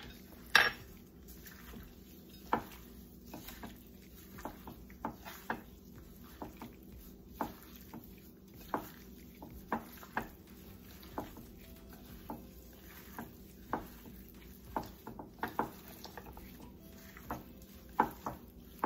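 A metal spoon clinking and scraping against a metal mixing bowl while raw chicken pieces are tossed in dry seasoning, in irregular short clicks about one or two a second.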